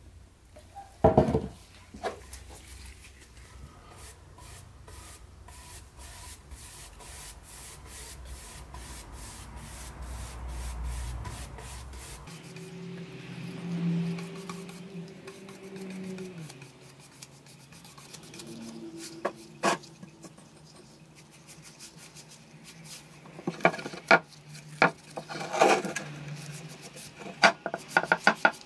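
Paintbrush laying clear varnish onto a bare wooden door panel: a repeated swishing rub of bristles over the wood. A few sharp knocks come as the panel is handled, the loudest about a second in and a cluster near the end.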